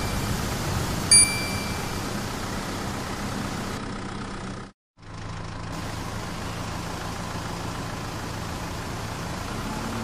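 Small toy DC motor spinning a plastic fan blade: a steady whir with a low hum. A bell-like ding rings once about a second in, and the sound drops out briefly just before halfway.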